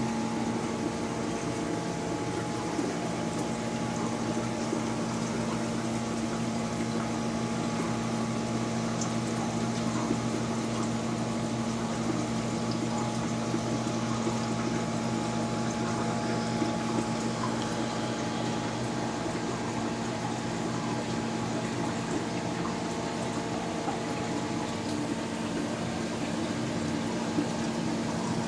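Large aquarium's water pump humming steadily under an even wash of moving, trickling water.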